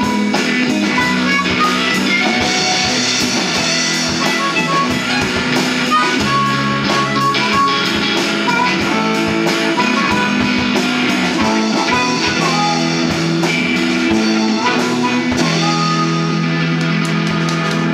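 Live blues-rock band playing an instrumental passage: electric guitar (a Fender Telecaster), electric bass, drum kit and amplified harmonica. Near the end the band moves onto a long held chord under rapid drum hits, like a song's closing flourish.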